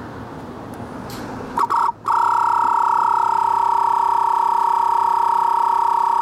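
Audew 12V twin-cylinder tire inflator switching on about two seconds in, with a brief stutter before it catches, then running steadily with a loud, even whine while pumping up a motorcycle tire.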